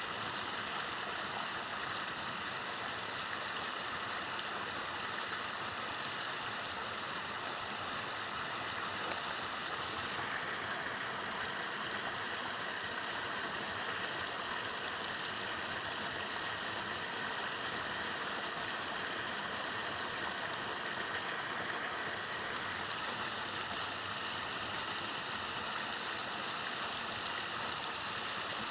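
Steady rain: an even hiss with no distinct events.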